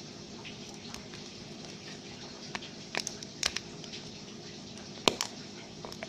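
Gooey slime squishing in hands and plastic Easter egg halves, with a few short sticky pops and clicks, the loudest about five seconds in, over a steady rain-like hiss.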